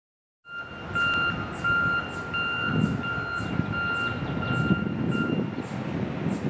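A work vehicle's reversing alarm beeping evenly, about one and a half beeps a second, over a low rumble of vehicles; the beeping stops about five seconds in.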